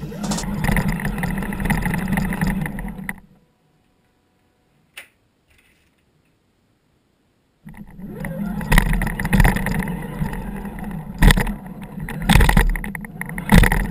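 Electric motor and geared drivetrain of an Axial Wraith RC rock racer whirring, heard through a GoPro mounted on the car. The sound cuts out for about four seconds, then returns as the car drives over snow, with several sharp knocks as it bounces near the end.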